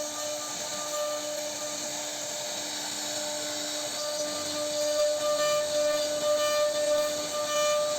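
CNC router spindle whining steadily as its bit cuts into wood, with a hiss of cutting. It grows a little louder about halfway through.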